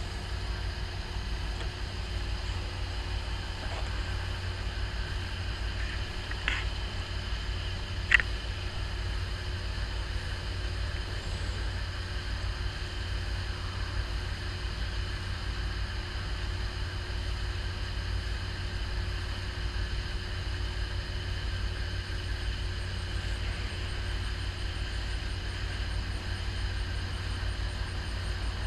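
Steady low rumble of a towboat's diesel engines as it slowly pushes barges into a lock. Two brief sharp ticks stand out about six and eight seconds in.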